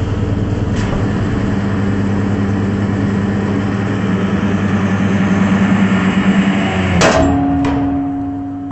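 Hydraulic press running with a steady low hum as the ram bears down on a ball, the hum growing a little louder and rougher. About seven seconds in the ball bursts with a sharp crack, a smaller crack follows, and the machine's hum then settles at a higher pitch.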